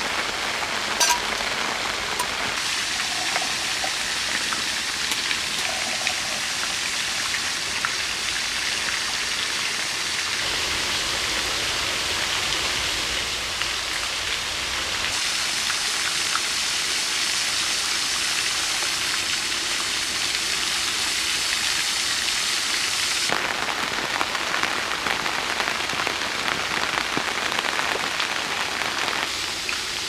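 Steady rain falling, with a few sharp drop ticks early on. The rain's loudness and tone shift abruptly a few times, at about 2.5, 15 and 23 seconds in and again near the end.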